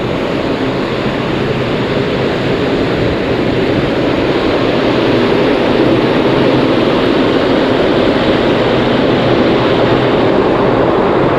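Steady roar of the ferry Sunflower Gold's machinery heard on its open deck, with a faint low hum underneath, growing slightly louder.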